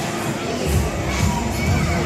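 Crowd at a fairground ride, with riders and onlookers shouting and screaming excitedly in short rising yells. A low bass comes in under a second in.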